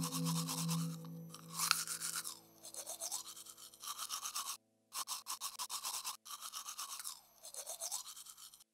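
Manual toothbrush scrubbing teeth in quick back-and-forth strokes, with the sound cutting out briefly twice around the middle.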